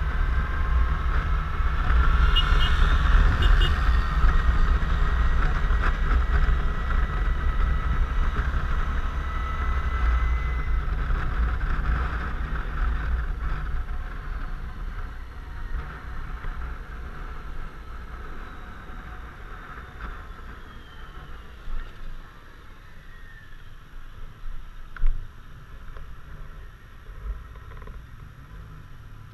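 Suzuki Burgman 650 maxi-scooter riding, with its engine and drive whine under heavy wind rush on the onboard camera. The bike slows about halfway through and the sound drops to a quieter engine running near idle. There are a couple of brief knocks near the end.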